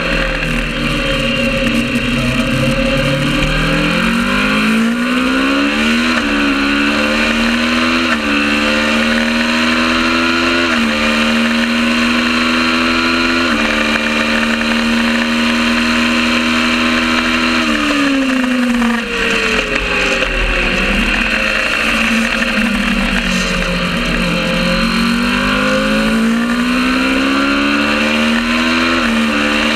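Kawasaki ER650 parallel-twin race engine accelerating hard up through the gears, its pitch climbing with a drop at each quick upshift. It holds high revs for about four seconds, then falls away through downshifts under braking before pulling up through the gears again near the end, with steady rushing noise throughout.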